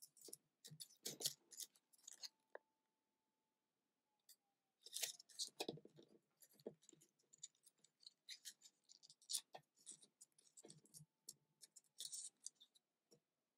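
Origami paper being folded and creased by hand: faint, scattered crinkles and soft taps, with small flurries of handling every few seconds.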